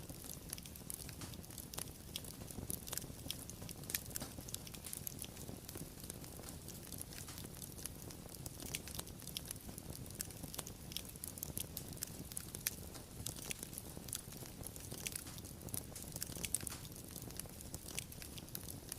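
Wood fire crackling: a steady low rumble of burning with many sharp, irregular pops and snaps.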